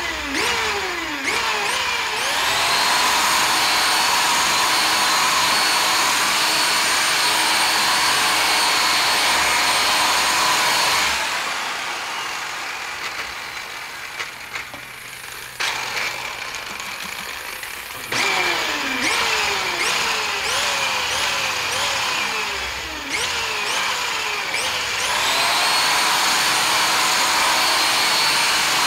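Milwaukee rotary buffer with a wool pad cutting compound on car paint to remove sanding scratches. It spins up with a rising whine, runs steadily, then winds down about a third of the way in. After a quieter pause with a sharp click, it is pulsed in short bursts with the pitch rising and falling. Near the end it spins up again and runs steadily.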